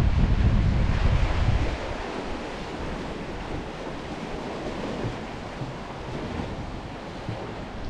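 Wind buffeting the microphone in a low rumble for the first couple of seconds, then easing. Underneath it is a steady wash of sea and wind noise.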